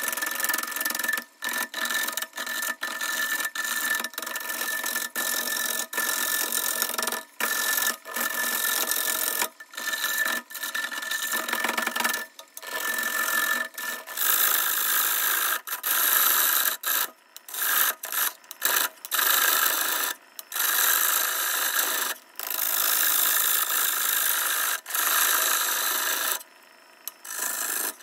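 A turning tool cutting a spinning live-edge maple bowl blank on a wood lathe. It makes a hissing, scraping cut that stops and starts again many times, every second or two, as the tool meets and leaves the wood. A steady high tone sits under it through the first half.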